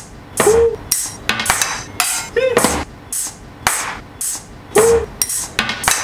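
A beat-driven music track: a rhythmic run of sharp percussive hits, about two a second, with short swooping tones sounding between some of them.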